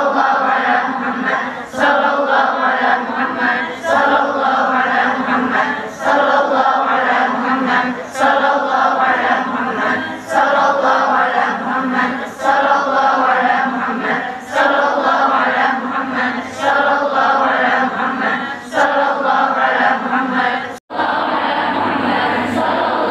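A large group of young women chanting a short sholawat, a blessing on the Prophet Muhammad, in unison. The phrase restarts about every two seconds. Near the end a brief break cuts in, and the group chanting goes on more evenly.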